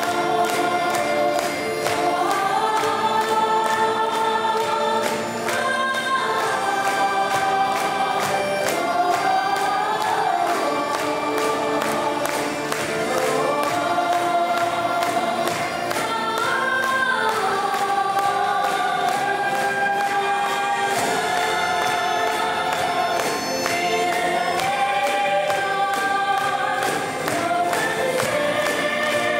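Women's vocal group singing live in multi-part choral harmony into handheld microphones, with live band backing. The sustained, gliding vocal lines run throughout.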